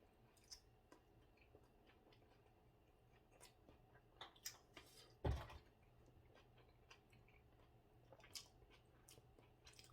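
Quiet eating of a Korean pancake: faint chewing and scattered small clicks, like chopsticks on a plate, with one louder knock about five seconds in.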